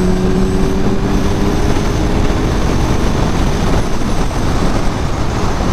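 Kawasaki Ninja 1000SX inline-four engine accelerating at highway speed, its note climbing slightly in the first couple of seconds before it is buried under loud, steady wind rush over the microphone.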